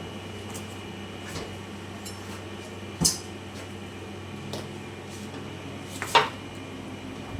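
Kitchen clatter of dishes and utensils being handled: a few light knocks and two sharp clinks, about three seconds apart, the second the loudest with a brief ring, over a steady low hum.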